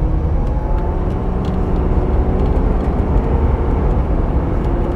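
Inside the cab, a Ford F-250's 6.7 L Power Stroke V8 turbodiesel pulls under acceleration while its turbo builds boost, with road noise. The sound is a steady low rumble with a faint whine over it.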